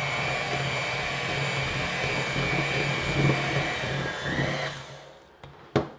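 Electric hand mixer running with a steady whine, its beaters working flour into thick cookie dough in a glass bowl; it winds down and stops about five seconds in, followed by a short sharp knock near the end.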